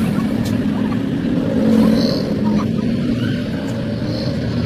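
A vehicle engine running steadily at an even speed.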